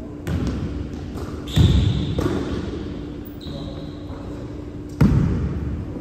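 Basketball bouncing on a hardwood gym floor, four separate hits that echo around a large hall, the loudest about a second and a half in and another near the end. Brief high squeaks of sneakers on the floor come in between.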